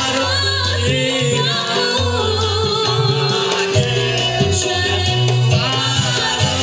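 A woman singing a melody with vibrato into a microphone, amplified over backing music with a steady bass line.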